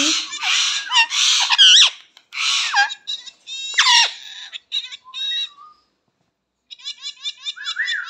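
Indian ringneck parakeet screeching and chattering in loud, high-pitched squawks with sharp rising and falling glides. After a short pause it gives a fast run of short repeated chirps near the end.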